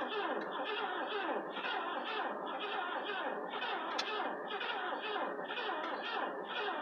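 A 1966 Lincoln's V8 being cranked on the starter during a first-start attempt, turning over without catching. It is a steady, even churn with about two beats a second.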